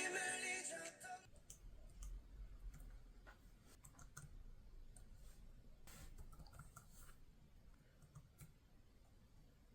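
Background music fading out in the first second, then faint, irregular clicks and taps.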